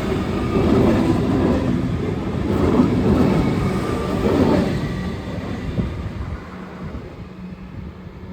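Alstom Comeng electric train running out of the station on the rails, a rumbling noise of wheels and running gear that stays loud for about four or five seconds, then fades as the train pulls away.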